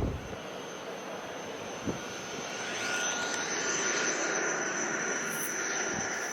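Airliner engines on approach: a steady high whine over a rushing hiss, growing a little louder about two seconds in.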